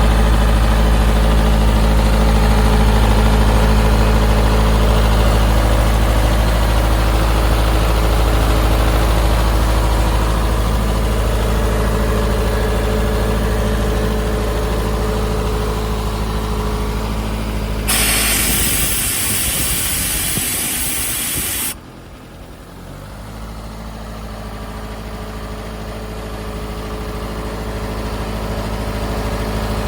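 Atlas portable air compressor running steadily. About eighteen seconds in, a loud hiss of venting air starts and lasts about four seconds, then cuts off suddenly. After that the machine runs much quieter and slowly grows louder again.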